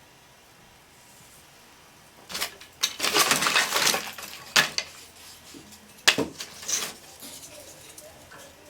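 Clatter and knocks of thin wooden crate slats being handled and set into the fireplace kindling: a dense run of knocks from about two seconds in, then two single knocks a little later.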